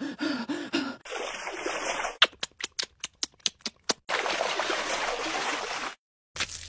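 Dubbed cartoon sound effects: a few short gasping voice sounds, then a quick run of about eight sharp clicks, then about two seconds of steady hiss.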